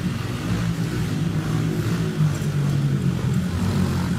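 Small 70cc four-stroke dirt bike engine (Baja Dirt Runner) running under the rider on a dirt track, its pitch rising and falling as the throttle is worked.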